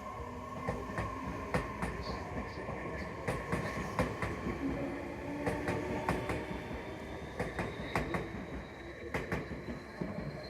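Electric train moving slowly through a station, its wheels clacking over rail joints in close pairs every second or two over a steady rumble. About halfway through, a faint high motor whine starts and slowly rises in pitch.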